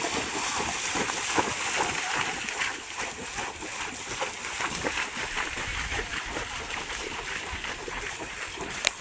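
Horses' hooves splashing through shallow water as several horses walk and trot through a flooded riding arena: a continuous wash of irregular splashes and sloshing. A sharp click near the end.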